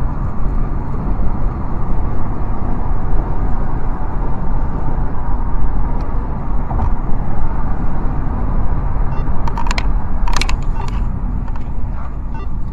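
Car cabin noise at highway speed picked up by a dashcam: a heavy, steady low rumble of road and engine with rattling, and a few short clicks about ten seconds in.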